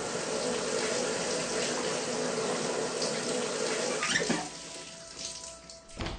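Shower water running steadily, dropping away about four seconds in.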